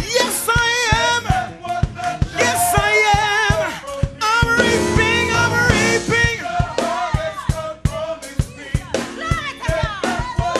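Music with a singing voice carrying a wavering vibrato over a drum kit that keeps a steady beat.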